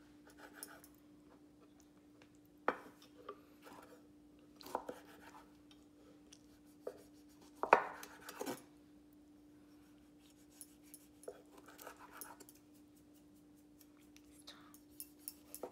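Chef's knife slicing a tomato on a wooden cutting board: scattered knocks as the blade reaches the board, the loudest about eight seconds in, with soft slicing sounds between them. A faint steady hum runs underneath.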